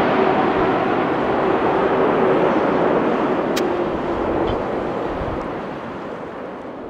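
Jet airliner's engines going by and fading away: a broad rush of engine noise with a faint steady hum, slowly growing quieter as the aircraft moves off.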